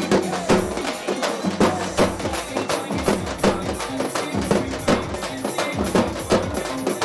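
A drum troupe beating large shallow-shelled drums with sticks in a fast, driving rhythm, with loud accented beats about twice a second and quicker strokes between them.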